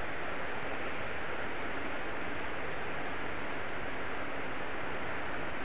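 A steady, even hiss with no pitch, rhythm or separate events.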